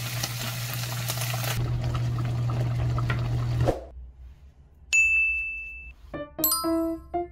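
Tofu slices frying in oil in a nonstick pan, a steady sizzle that stops about three and a half seconds in. Then a single chime rings for about a second, and light music of short ringing notes begins.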